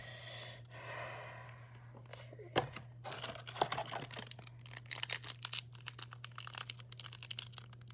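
A trading card pack's foil wrapper being torn open: soft rustling at first, then from about three seconds in a dense run of sharp crinkling crackles.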